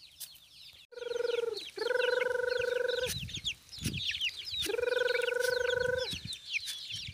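Chickens: young chicks peeping continuously in quick high chirps, with three long, even calls of about a second each from a grown bird.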